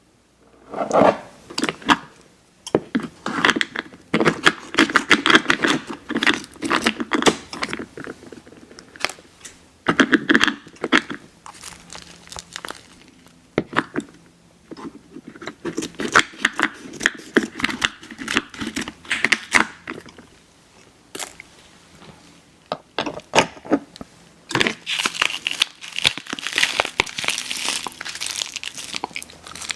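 Close-miked candy wrapper crinkling and tearing, mixed with chewing of Airheads Xtremes sour chewy candy, in repeated bursts of crackles with short pauses.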